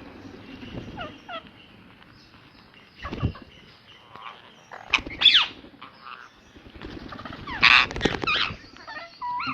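Ringneck parrot calling: a few separate harsh squawks, loudest about five seconds in and again around eight seconds, with short whistled notes near the end. A dull knock about three seconds in.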